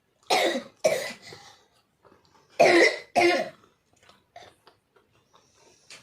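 A person coughing hard four times, in two pairs of coughs about two seconds apart.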